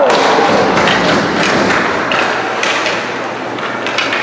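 Ice hockey rink play: sticks, puck and skates clacking and knocking, with dull thuds off the boards and glass, over a steady din of spectators in the rink.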